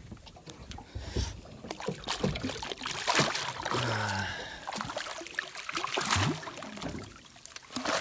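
Hooked goldband snapper thrashing at the surface, with irregular splashes of water.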